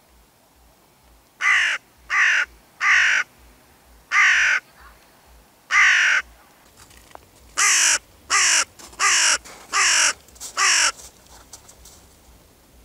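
Hooded crow cawing about ten times, each caw sliding down in pitch: three close together, two more spaced out, then a faster run of five.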